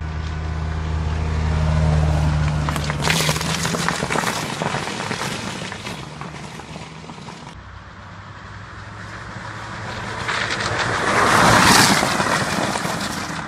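Volkswagen Golf IV estate driving by: its engine runs with a steady low drone at first, then the car comes in close and passes with a swell of engine and tyre noise that is loudest near the end.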